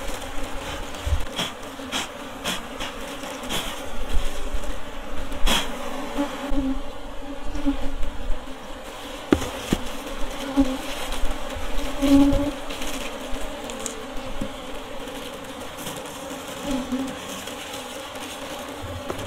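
Honey bees buzzing around an opened log hive during the honey harvest, with louder passes as single bees fly close. Scattered clicks and knocks come from handling the comb.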